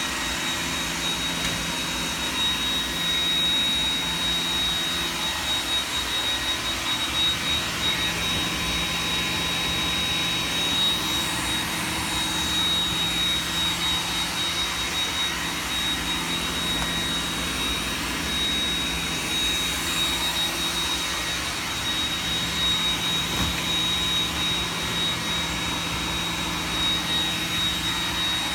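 iRobot Roomba 980 robot vacuum running: a steady whir of its suction fan and brushes, with a constant high-pitched whine over a low hum.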